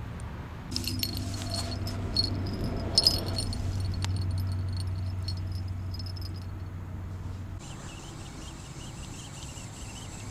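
Spinning rod and reel being handled: irregular clicks and light rattling with a low hum, loudest about two and three seconds in, stopping suddenly about seven and a half seconds in. A faint, high, fluttering chirp follows.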